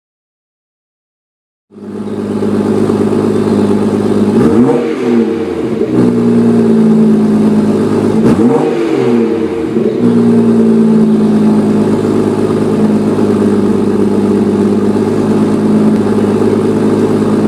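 BMW M240i's turbocharged 3.0-litre straight-six running through a BMW M Performance exhaust. It cuts in about two seconds in, is blipped twice with the revs rising and falling back (around a quarter and half way through), then runs at a steady idle.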